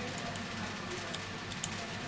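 A few faint small clicks of a precision screwdriver tip working a tiny screw in a smartphone's frame, over a steady hiss and low hum.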